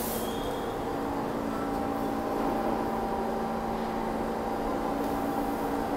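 New York City subway trains in an underground station: a steady rumble with a low electrical hum as one R train stands at the platform and another approaches, with a brief hiss of air at the very start.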